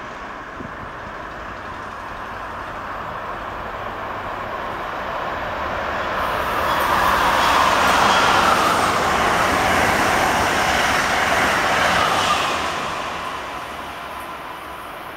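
Amtrak Acela Express high-speed trainset passing through the station at speed: the noise builds steadily as it approaches, is loudest for about five seconds as it goes by, then fades as it runs away down the line.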